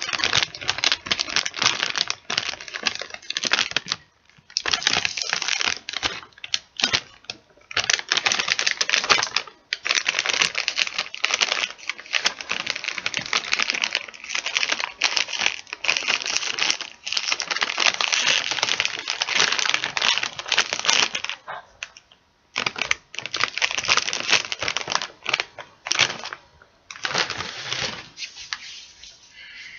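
Crinkling of a crisp plastic chip bag handled close to the microphone: a dense, crackly rustle in long stretches, broken by short pauses about 4, 9 and 22 seconds in.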